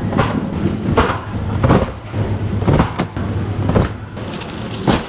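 Packages of chicken breast knocking into a metal wire shopping cart: a string of sharp knocks and rattles, about seven in five seconds, over a steady low hum.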